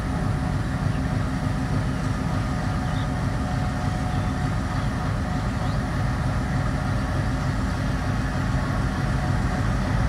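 Diesel locomotive's engine running with a steady low hum as the train rolls slowly along the station platform.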